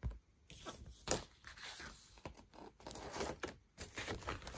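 Handling noise from a vinyl LP and its packaging: a brief low thump at the start, then irregular rustling and scraping with a sharp crack about a second in.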